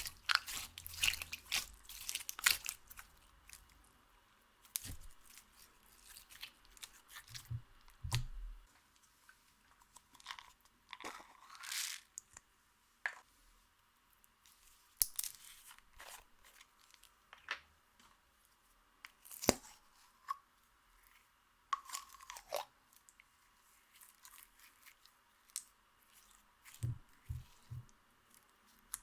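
Slime and crushed makeup worked by hand, giving irregular crunchy crackles and clicks with quiet gaps between them.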